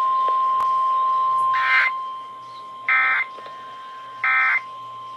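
NOAA Weather Radio emergency alert signalling: a steady single-pitch warning alarm tone, loud for about the first two seconds and then fainter, with three short digital data bursts about 1.3 seconds apart. These are the SAME end-of-message codes that close a warning.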